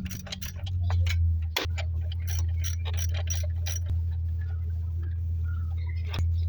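Ratchet wrench clicking, quickly and regularly for about three seconds and then in sparser ticks, over a steady low hum.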